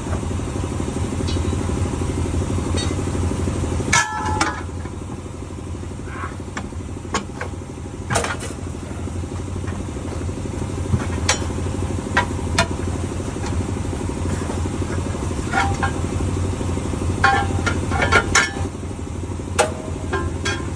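A truck engine idling steadily, with scattered sharp metal clanks and knocks from tire tools working a semi-truck tire's bead on its rim. The clanks are loudest about four seconds in and in a cluster near the end.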